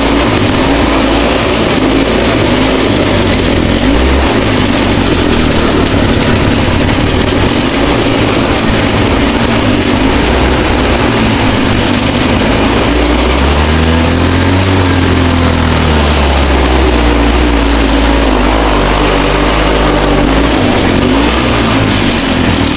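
Four-horsepower Briggs & Stratton single-cylinder engine of a modified Craftsman lawn tractor running hard while the tractor is driven up a hill. Its pitch wavers with throttle and load, rising and then falling again a little past the middle.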